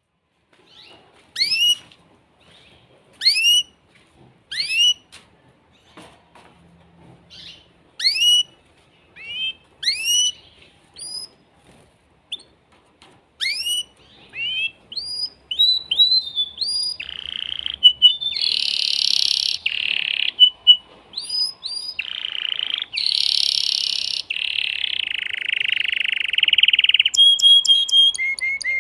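An excited male domestic canary singing. It begins with single downward-swept whistled notes a second or two apart. About halfway in it breaks into continuous fast song, with rapid trills and long harsh buzzing rolls.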